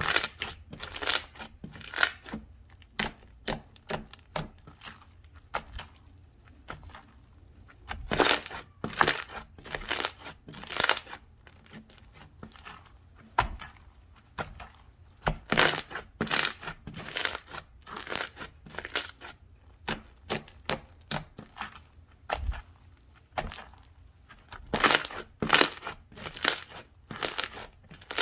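Slime being squished, pressed and stretched by hand, giving irregular sharp clicks and pops in clusters as air pockets in it burst.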